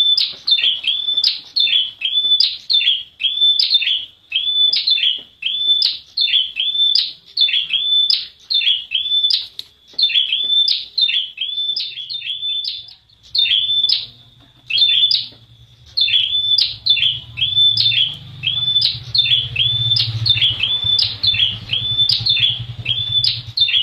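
Caged prenjak wulung, a prinia, calling in a fast, even run of short, sharp high notes, about two a second. The notes break off briefly about halfway, and a low hum sits under the second half.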